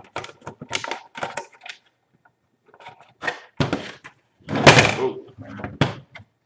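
Snap-fit plastic case of a Western Digital external hard drive enclosure being pried apart with a plastic gift card: irregular clicks as the catches give, and plastic scraping, loudest about four and a half seconds in.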